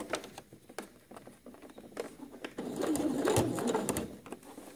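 Sewing machine topstitching a shirt collar in short, slow runs, with light clicks of the needle and fabric being handled; it runs louder and more continuously for over a second from about halfway through.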